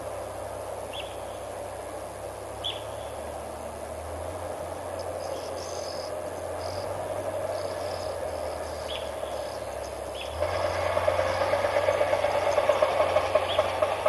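Wild riverside ambience: a steady insect chorus with a few short, high, falling bird calls. About ten seconds in, a louder, rapidly pulsing chorus starts.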